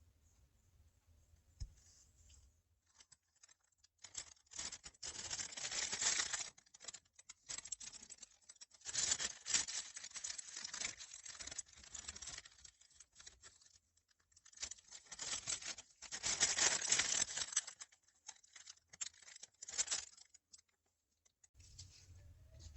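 Dry scratching and scraping of a tool working on a makeup product, in three long spells of a few seconds each with short ticks between.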